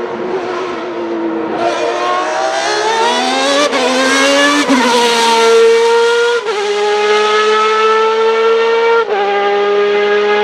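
Ferrari 333 SP's 4.0-litre V12 at full throttle, its high-pitched wail rising in pitch as it accelerates. Several quick upshifts cut in, each dropping the pitch before it climbs again.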